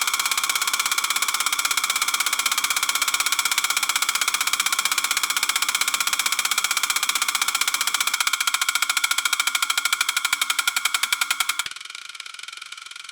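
Electric bone saw motor running with a steady high-pitched whine and a fast, even buzzing pulse. Near the end it drops suddenly to a much quieter, duller sound.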